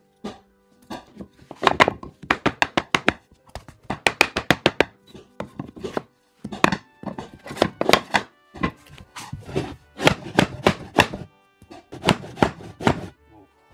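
Hammering on wooden floorboards: runs of quick, sharp strikes, about six a second, with short pauses between the runs. Background music plays under it.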